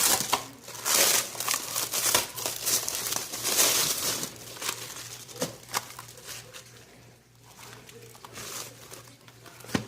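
Packaging wrap crinkling and tearing as it is pulled off, busy for the first few seconds and then thinning to occasional rustles, with a sharp tap near the end.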